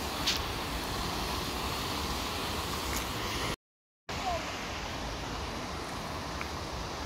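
Steady rush of water pouring from a dam's open lower sluice and churning through the rocky channel below. The sound drops out for about half a second midway.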